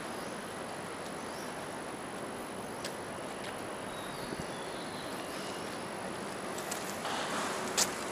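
Outdoor city street ambience: a steady hum of distant traffic with faint high chirps and two sharp clicks, the louder one near the end.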